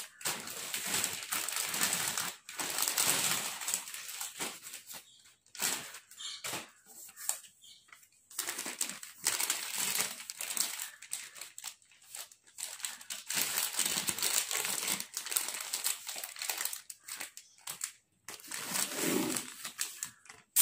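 Thin plastic wrapping and a plastic mailer bag crinkling and rustling in uneven bursts with short pauses, as a packaged plastic broom is handled and unwrapped.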